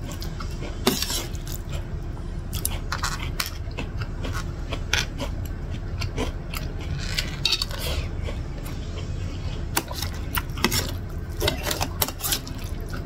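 Metal spoon and fork clinking and scraping irregularly against an enamel plate while noodles are scooped up, with chewing between the clinks.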